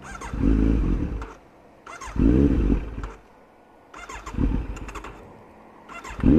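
Kawasaki Z900's 948 cc inline-four being cranked on its electric starter in four short bursts of about a second each, and not catching: the tank has run dry.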